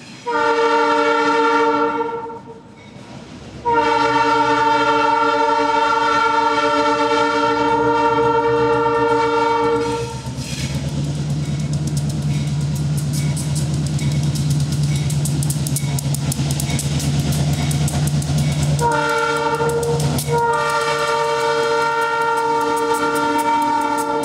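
Diesel locomotive's multi-chime air horn sounding two long blasts, a short one and a long one, the grade-crossing signal, as the train approaches. Between the second and third blasts the locomotive's diesel engine rumbles and the wheels click over the rail joints.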